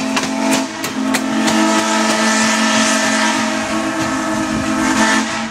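Steam locomotive whistle of Black River & Western No. 60 blowing one long, steady chord that cuts off near the end, with a few clicks of train wheels over rail joints in the first second or so.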